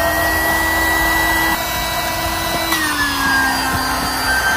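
Small handheld electric air pump running steadily with a high motor whine while inflating a camping pillow through its valve. The whine drops slightly in pitch about three seconds in.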